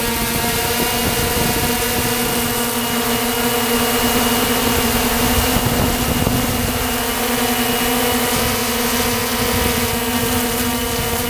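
Walkera TALI H500 hexacopter's brushless motors and propellers humming steadily in flight, heard through its onboard GoPro, with air rushing over the microphone.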